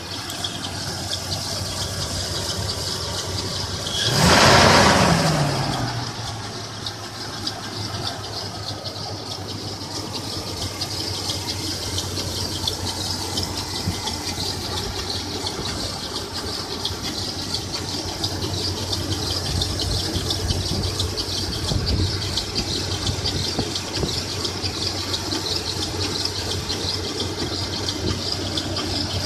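1996 Toyota 4Runner engine running with a steady high-pitched squeal over its idle. It is revved once about four seconds in, the pitch falling back to idle. The owner cannot identify the noise and suspects the timing chain or water pump area.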